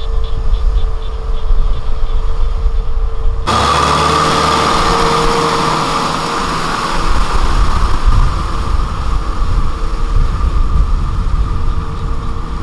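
Kubota M6040SU tractor's diesel engine running steadily under load as its rear rotavator tills wet, muddy soil. About three and a half seconds in, the sound changes abruptly and becomes brighter and hissier.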